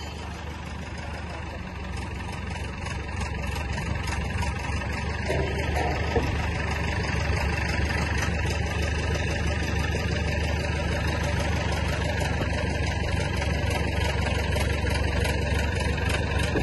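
Mobile crane's diesel engine running under load as it hoists a tractor on slings, getting louder over the first few seconds, then holding steady.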